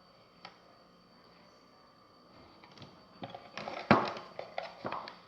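Kitchen handling noise as ham-and-cheese sandwiches are being loaded in to toast: a small click, then from about three seconds in a run of knocks and rattles of cookware and bread being handled, the loudest knock about four seconds in.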